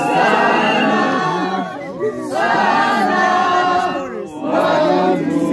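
A crowd of voices singing and chanting together in three long held phrases, with short breaks between them.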